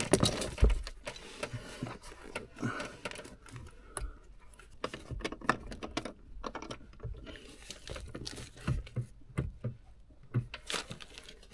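Scattered small metallic clicks, taps and scrapes of bolts, washers and a steel clutch repair bracket being handled and worked into place by hand, with a few louder knocks in the first second.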